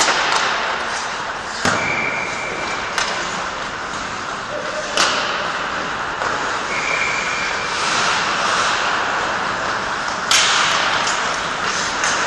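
Ice hockey practice: skates hissing and scraping on the ice with a handful of sharp cracks of sticks striking pucks and pucks hitting the boards, the loudest about five and ten seconds in.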